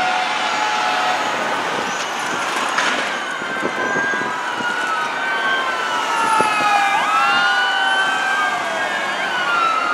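Sirens of several responding fire engines and a ladder truck sounding together, their wailing pitches rising and falling and crossing one another.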